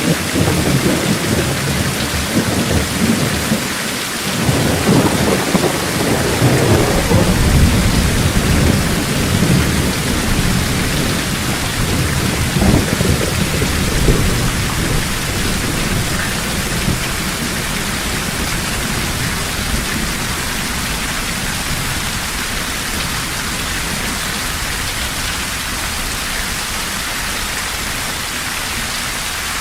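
Heavy rain falling steadily, with rolls of thunder rumbling through the first half. The thunder dies away, leaving only the rain hiss toward the end.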